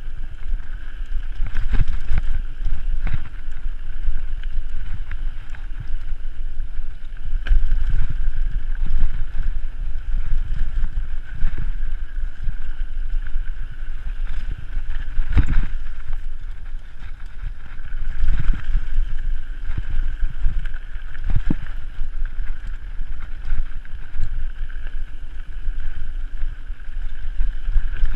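Wind buffeting the microphone of a camera riding a mountain bike down a dirt singletrack, a continuous low rumble. Scattered knocks and rattles come from the bike jolting over bumps in the trail.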